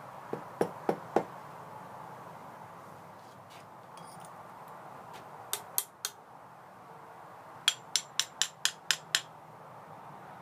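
A series of sharp hard knocks, like tapping with a hammer: four about a second in, three in the middle, then a quick run of seven near the end at about five a second.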